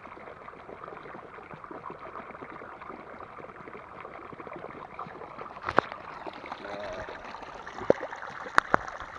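Small river flowing steadily over its bed, with a few sharp clicks or knocks close by in the last few seconds.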